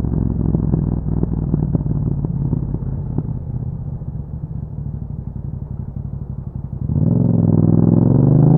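Yamaha MT-07's parallel-twin engine through an Akrapovic exhaust, burbling and crackling on a closed throttle as the revs ease down. About seven seconds in, the throttle opens and the exhaust note rises steadily as the bike accelerates.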